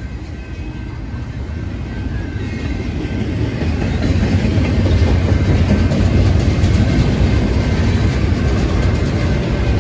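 Double-stack intermodal container train rolling past: the steady rumble and clatter of loaded well cars' steel wheels on the rails, growing louder through the first half and then holding.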